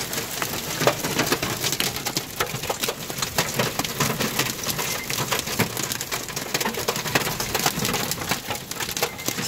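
Heavy storm rain pelting the car's roof and windows, heard from inside the car: a dense, constant clatter of sharp hits.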